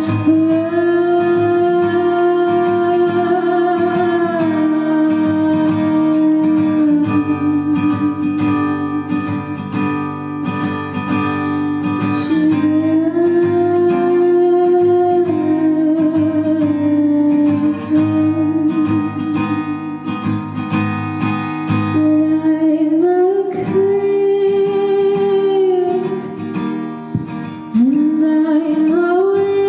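A woman singing long held notes that slide up into each hold, over strummed acoustic guitar.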